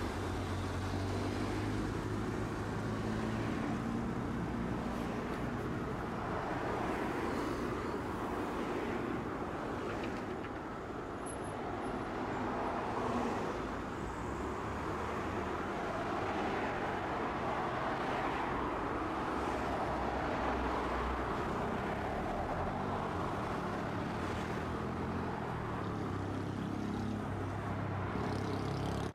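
City road traffic: cars passing one after another, a steady hum of engines and tyres that swells and fades as each goes by.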